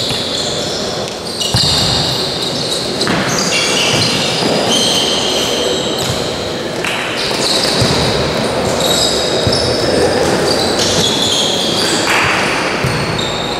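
Futsal play on an indoor court: players' shoes squeaking on the floor in short high chirps, with the ball being kicked and bouncing now and then, all echoing in a large sports hall.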